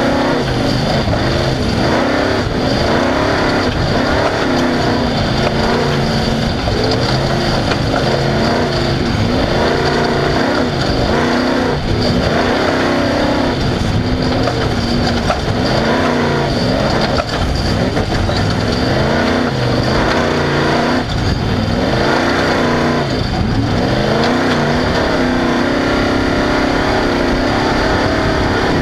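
Off-road race vehicle's engine running hard, its pitch rising and falling again and again as it revs and lifts off, over continuous rough-terrain and wind noise.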